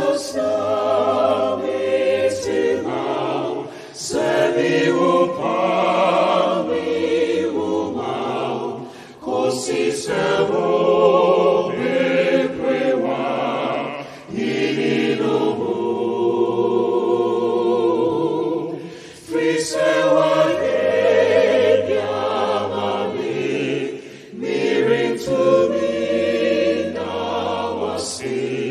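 Live gospel song: a male lead singer with a small group of backing singers, sung in phrases of about five seconds with short breaks between them.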